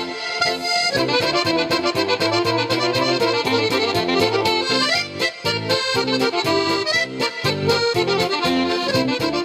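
Instrumental break in an Italian folk song: accordion leading a lively tune over bass and a steady beat.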